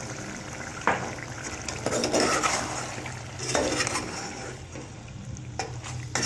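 Slotted metal spoon stirring chicken and yogurt in a metal cooking pot, scraping against the pot every second or so, over the sizzle of the hot oil.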